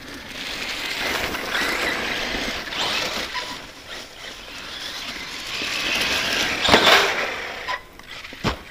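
Brushless electric RC truggy driving hard over grass and leaves, its motor whine and tyre noise rising and falling with the throttle. Two sharp knocks, about seven seconds in and just before the end, as the truck hits or lands.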